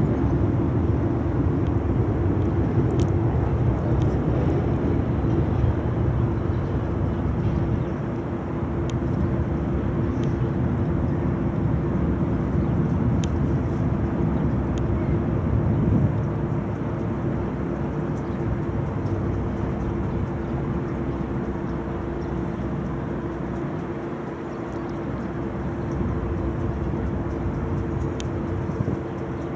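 A river tour boat's engine running steadily under way, a constant hum over a dense low rushing noise, with a few faint ticks.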